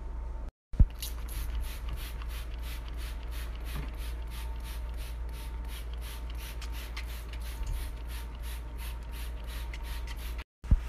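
A cloth scrubbing back and forth over the bottom of a white drawer, rubbing off a green stain, in even strokes of about three a second over a steady low hum. A sharp click comes about a second in.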